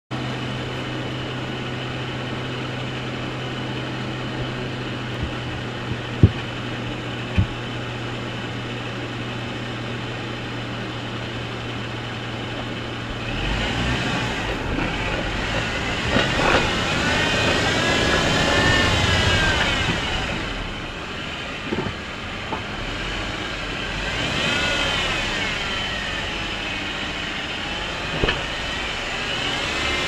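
Jeep Wrangler JK engine idling steadily, with two sharp knocks around six and seven seconds in. About halfway through the engine note gets louder and rises and falls in pitch as the Jeep drives off over sand and rock.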